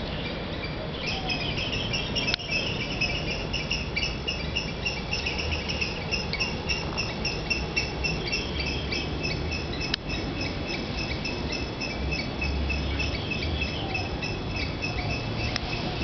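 Insects chirping in rapid, evenly repeated high pulses, starting about a second in, with a couple of sharp clicks.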